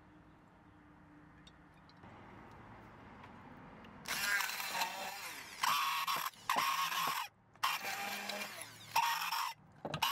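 Immersion blender switched on and off in about half a dozen short, loud bursts starting about four seconds in, its blade chopping roasted red peppers, garlic and coriander seeds in a glass dish. It sounds broken: the blender is failing.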